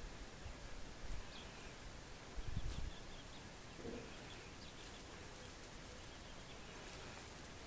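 Quiet outdoor ambience with faint, short, high bird peeps scattered throughout and a brief lower call about four seconds in. Low thumps on the microphone about a second in and again between two and three seconds in are the loudest sounds.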